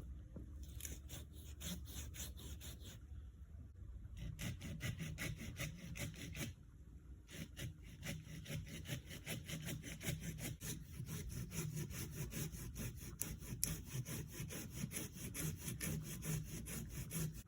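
Silky hand saw cutting through goat willow wood: quick, even saw strokes, about three or four a second, in three runs with short pauses about three and six and a half seconds in.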